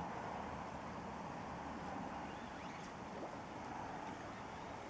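Steady outdoor background noise with no distinct event.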